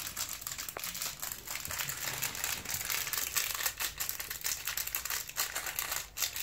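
Small plastic packet crinkling and crackling continuously as it is pulled and worked open by hand.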